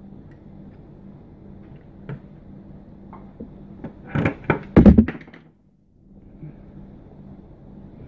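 Loud knocks and rubbing close to the microphone for about a second, about four seconds in, as a hand and sleeve handle the camera. The sound then cuts out completely for a moment. Before that, a few small clicks of tools on the bench.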